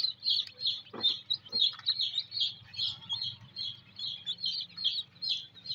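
A large brood of newly hatched chicken chicks peeping together: a steady run of short, high peeps, several a second.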